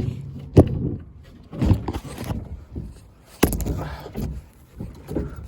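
A few sharp knocks and scrapes over rustling, the loudest a little past halfway.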